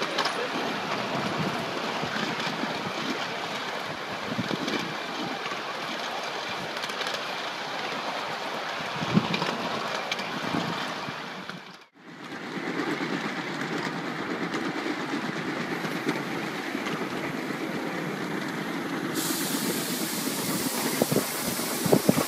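Ride-on miniature steam train running along its track: a steady rattle and rumble of the passenger cars' wheels, with the locomotive's steam hissing. The sound drops out briefly about halfway through, then carries on the same.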